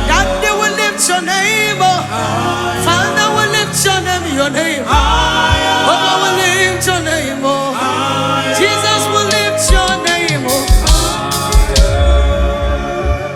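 Live gospel worship music: sung melody with melismatic runs over a band with bass and cymbals.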